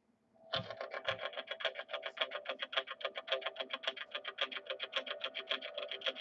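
Intro music starting about half a second in, with a fast, even pulse of about eight beats a second over sustained tones.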